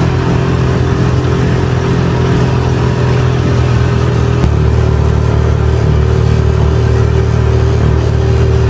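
A motor vehicle's engine running steadily with a low hum and a constant droning tone. The low part of the sound shifts slightly about halfway through.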